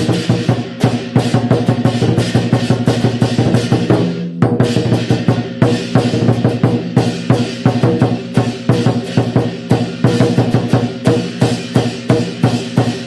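Drum music: fast, dense, evenly driving drum strikes, with a brief break about four seconds in.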